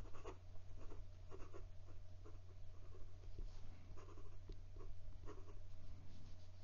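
Monteverde Monza fountain pen's steel medium nib scratching across notebook paper in short, irregular strokes as a word is written. The nib is still noticeably scratchy, though it is not tearing the page.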